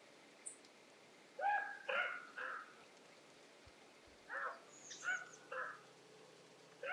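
Birds calling: short pitched calls in clusters of two or three, a couple of seconds apart, with one brief high chirp about half a second in.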